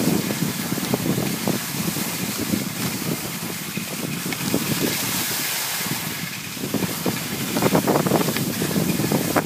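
Wind buffeting the microphone of a camera carried on skis, a gusting rumble that gets louder near the end, over the hiss of skis sliding on packed snow.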